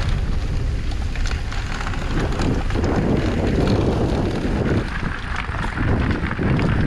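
Wind rushing over the microphone: a steady low rumble, rougher for a couple of seconds in the middle.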